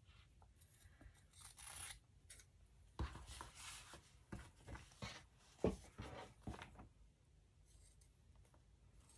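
Scissors snipping cotton fabric to miter its corners: a few short, quiet cuts spread through, with light rustling of the fabric and paper being handled.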